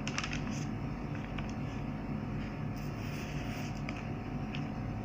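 A steady low mechanical hum with several fixed low tones, and a brief paper rustle from notebook pages being turned in the first half-second, with a few faint ticks later.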